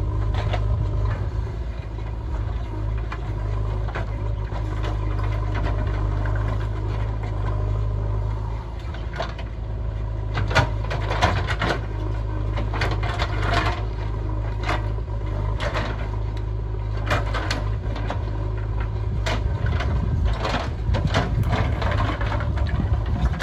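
JCB 3DX backhoe loader's diesel engine running steadily at work, with repeated sharp knocks and clatters from the machine's digging, most of them in the second half.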